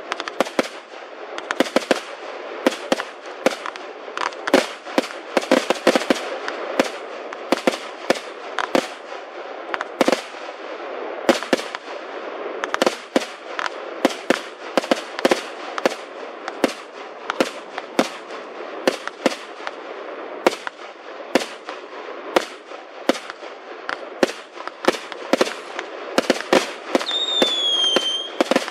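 Fireworks display: a rapid, irregular string of bangs and pops from bursting shells, about two or three a second, over a continuous crackling hiss, with a brief falling whistle near the end.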